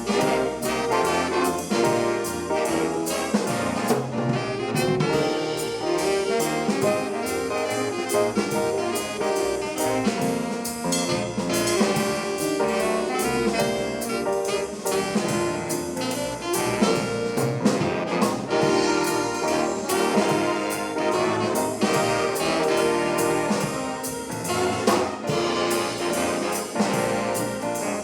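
High school swing band playing a jazz number, with brass and saxophones over a steady beat.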